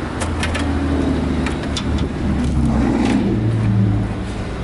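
A motor vehicle engine running, its low hum rising in pitch about three seconds in, with a few sharp clicks over it.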